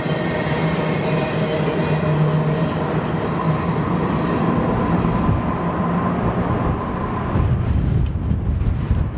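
Empty double-stack intermodal well cars of a freight train rolling past on a curve: a steady rumble of steel wheels on rail, with thin steady squealing tones above it. About seven and a half seconds in, the last car goes by, the train sound thins out, and wind buffets the microphone.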